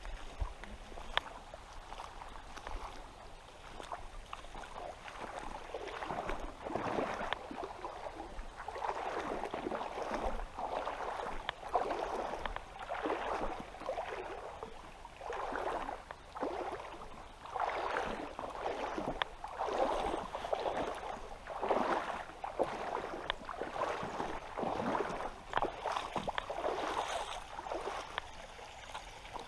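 Legs wading through shallow river water, a swishing splash with each step about once a second, starting a few seconds in.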